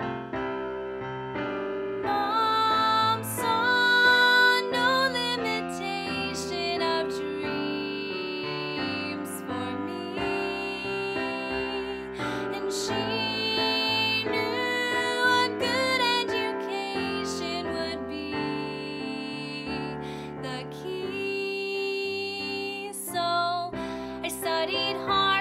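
Solo female voice singing a slow musical-theatre ballad over a piano accompaniment, the held notes carrying vibrato.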